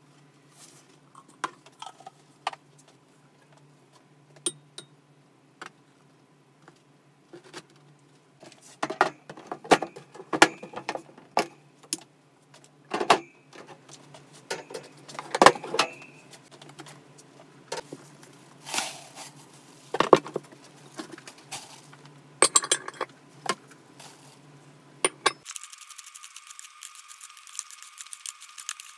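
Hamster-cage handling sounds: scattered light clicks, clinks and rattles of plastic and wire cage parts, with sharper knocks in the middle stretch. Near the end this gives way to a steady rustling as a hand scoops paper bedding.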